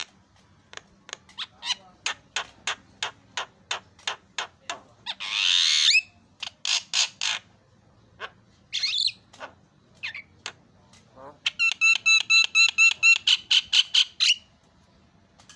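Javan myna (jalak kebo) calling through its learned repertoire: a run of short sharp clicking notes about three or four a second, a loud harsh squawk about five seconds in, then near the end a fast run of ringing repeated notes.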